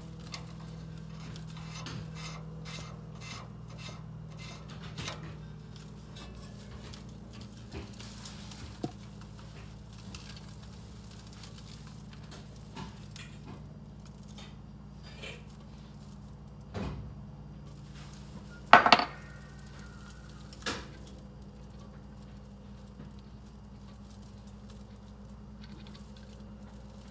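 Scattered metallic clicks and taps of steel suspension parts, such as tie rod ends, being handled at the front wheel. There is a louder clank about two-thirds of the way through and a steady low hum underneath.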